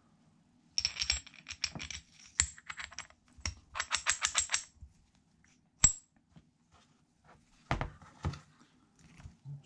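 Steel gearbox gears and shaft from a 125 pit bike clicking and clinking against each other as they are handled and slid together: quick runs of small metallic clicks, a couple of single sharp clinks, then two duller knocks near the end.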